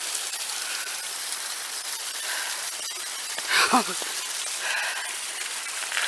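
Steady rain falling on and around the microphone. A brief vocal sound about two-thirds of the way through.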